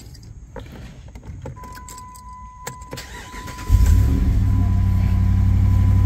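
2009 Jeep Commander engine cranking and catching about three and a half seconds in, then running at a steady idle. Before it there are a few light clicks and a steady high tone.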